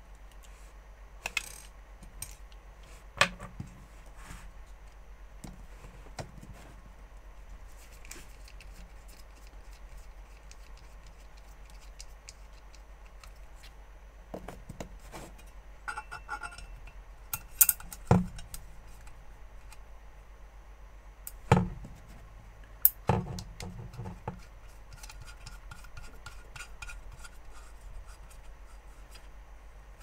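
Scattered clicks, taps and light clatter of small plastic and metal parts being handled and taken apart with a screwdriver: a joystick switch's plastic housing and its metal front plate. A few sharper knocks stand out, the loudest a cluster a little past the middle.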